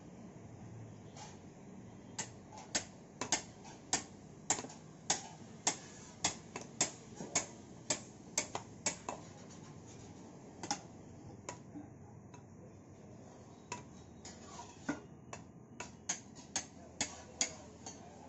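Light hammer taps on a spade's socket, fitting a wooden handle into it while the socket is still hot, about two sharp taps a second in a long run, a short pause, then another run near the end.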